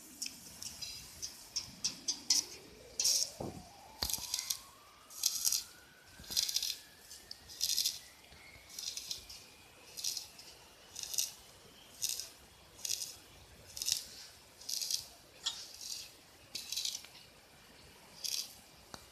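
Rhythmic rattling: a short shake about once a second, with a faint tone rising slowly in pitch during the first half.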